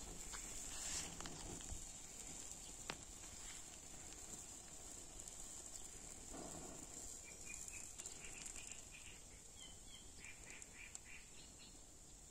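Socks burning on a stick, faintly: a few small crackles and ticks over a steady high hiss. A bird calls a quick run of short notes from about seven seconds in.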